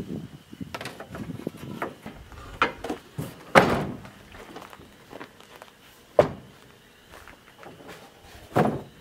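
Dump bed of a Bombardier utility vehicle lowered and banging down with a loud thunk about three and a half seconds in, followed by two lighter knocks and footsteps on gravel.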